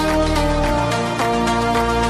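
Background music with a steady beat, held melody notes and a bass line that changes note about three-quarters of a second in.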